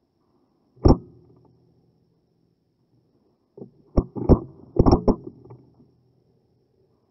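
A Wolverine Bolt-M airsoft sniper rifle in an Ares AS02 body, running on CO2 through a Storm regulator, fires one sharp shot about a second in. About three seconds later comes a quick run of mechanical clicks and clacks, which sounds like the bolt being cycled for the next shot.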